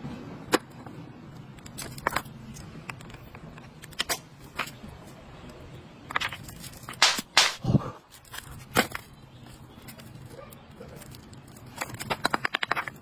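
Rough stones being handled in a plastic basket: scattered knocks and clacks of rock against rock and plastic, with rustling of banknotes and plastic wrapping. A quick run of crackling clicks comes near the end as a plastic-wrapped parcel is gripped.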